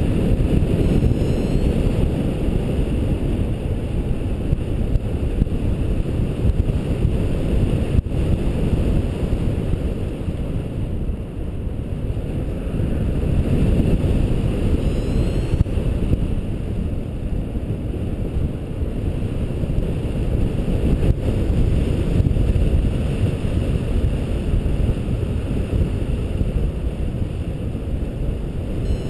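Steady low rumble of wind rushing over the microphone in gliding flight.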